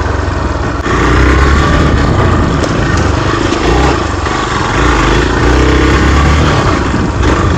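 Hero Xpulse 200's single-cylinder engine running under load, revving up sharply about a second in, then swelling and easing off a few times with the throttle.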